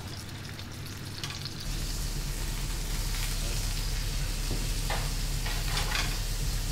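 Beef fillet searing in oil in a hot frying pan: a steady sizzle that grows louder about a second and a half in and then holds.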